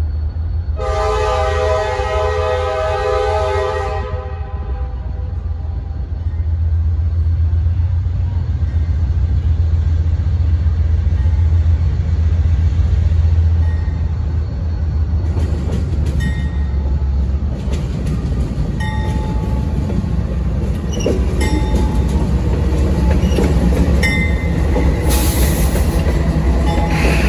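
A Norfolk Southern freight train's lead diesel locomotive sounds one long horn blast, a chord of several tones, starting about a second in. Under it the diesel engines keep up a steady low rumble as the train approaches. In the second half the locomotives pass close by, with wheels clicking and brief squeals from the rails.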